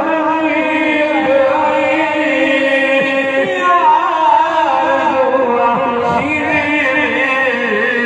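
A man singing a devotional naat in Saraiki, with long, wavering, ornamented notes held without a break.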